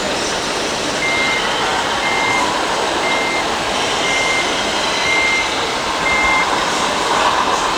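Reversing beeper of a radio-controlled model truck, six short even beeps at one pitch, about one a second, over steady background noise.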